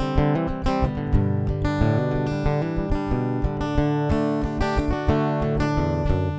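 Guitar music in a chicken pickin' style: quick, snappy plucked notes over a steady bass line.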